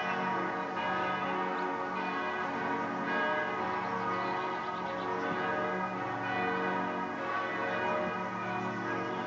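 Several church bells ringing together without a break, their ringing tones overlapping.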